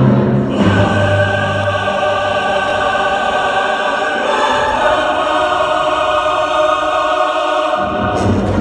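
Orchestral show music with a choir singing long held chords. The chord changes about halfway through, and the low orchestral notes drop away for a few seconds before coming back near the end.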